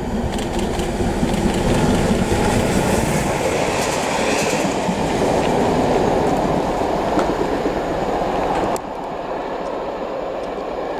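LMS Black Five 4-6-0 steam locomotive No. 45212 passing at speed close by, a loud rumble and clatter of wheels on rail that swells as it comes near. The sound drops off abruptly near the end.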